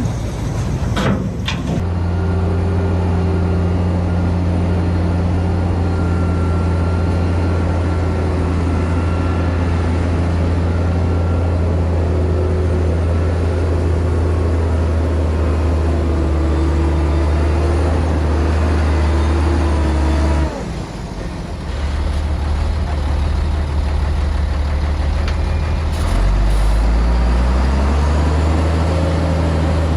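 Heavy diesel engine of construction machinery running with a steady low drone. The sound breaks off briefly about two-thirds in, and the engine note rises near the end.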